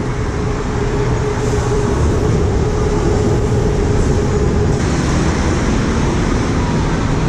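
Loud, steady noise of heavy city road traffic, buses and cars, heard from above the road.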